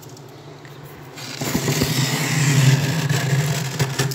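Thick freezer frost being scraped: a rough, crunching scrape that starts about a second in and lasts close to three seconds. A steady low hum from the running freezer lies under it.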